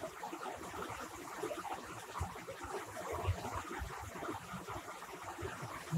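Faint steady hiss of background noise from an open microphone, with a few soft low thuds.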